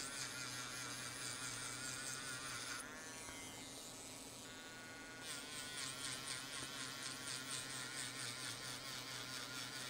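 Mant D1 battery-powered grinding pen whining steadily as it grinds away old spot welds on an iPhone battery flex. Between about three and five seconds in the whine thins out and shifts in tone, then comes back.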